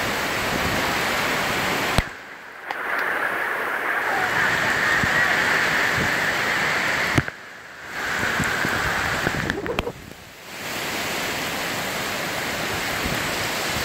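Heavy tropical rain pouring onto the street and roofs, a dense steady hiss. It cuts out sharply three times for under a second each, every drop starting with a click.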